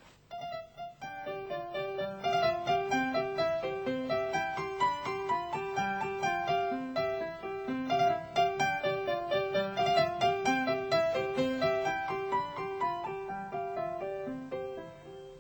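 Instrumental piano music: a bouncy figure of short notes repeating in an even rhythm, dying away near the end.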